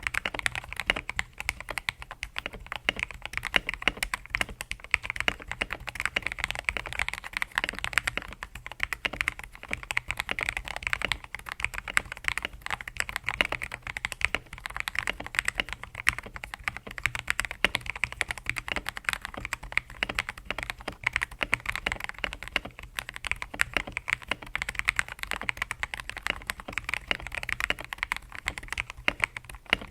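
Fast, continuous typing on a TM680 mechanical keyboard fitted with lubed Akko CS Matcha Green linear switches and Bubble XDA PBT keycaps, giving a steady stream of key clacks. The case is padded with foam and tape mods, and the stabilisers are lubed.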